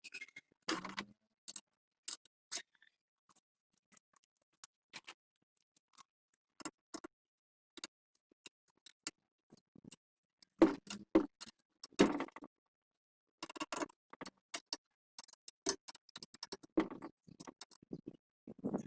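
Irregular clicks and knocks of tools and parts being handled during work on a generator, sparse at first and busier from about ten seconds in.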